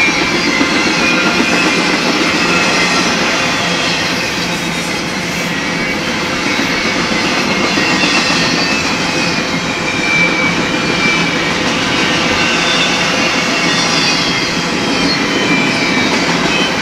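Double-stack container well cars of a freight train rolling past: a steady, loud rumble of steel wheels on rail. Faint high wheel squeals come and go over it.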